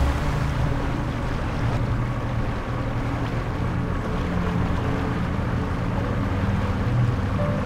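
Wind and water noise out on open water, with the sound of moving water and wind over the microphone, over a steady low drone.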